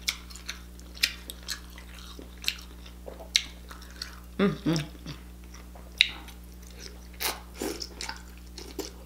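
Close-up wet, sticky eating sounds: fingers squelching king crab meat in a bowl of seafood sauce, sauce dripping, then lip smacks and mouth noises as the sauced crab is eaten, in a string of sharp irregular clicks. A short voiced murmur comes about four and a half seconds in.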